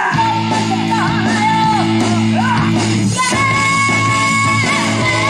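Trot music performed live through a PA: a singer's bending melodic line over a steady backing track, with a long held high note from about three seconds in.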